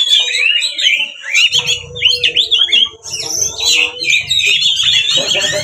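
Oriental magpie-robin (kacer) singing a loud, rapid, varied song of quick up-and-down whistles and chatters, with a brief break about three seconds in. This is its aggressive 'fighting' song, used to provoke other magpie-robins into answering and fanning their tails.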